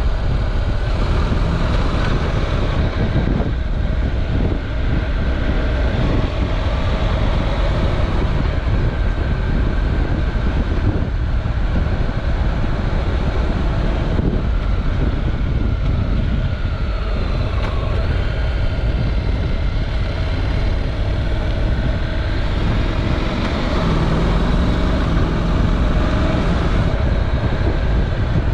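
Honda NC700X motorcycle's parallel-twin engine running on the move, its note rising and falling a little through the bends, over a steady rush of wind and road noise on the bike-mounted camera's microphone.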